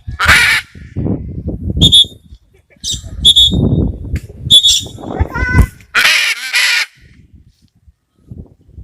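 Parrots calling: harsh, raspy squawks near the start and again around six seconds in, with short high chirps between them.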